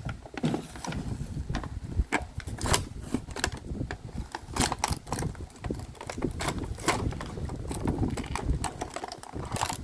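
Toy packaging being handled and opened: a run of sharp crinkles, crackles and clicks with rustling in between.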